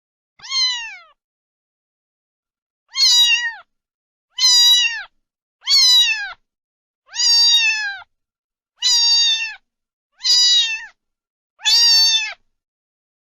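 A domestic cat meowing eight times in a row, each meow about half a second to a second long and falling in pitch at the end, with clean silent gaps between them.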